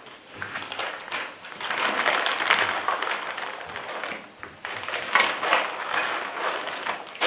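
Packaging being handled: rustling and crinkling of cardboard and plastic as the contents are lifted out of the box, with a short lull about four and a half seconds in.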